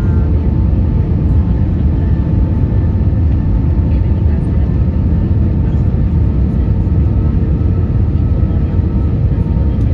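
Steady low rumble of airflow and the IAE V2500 engines inside the cabin of an Airbus A320 descending on approach with flaps extended, with a faint steady whine above the rumble.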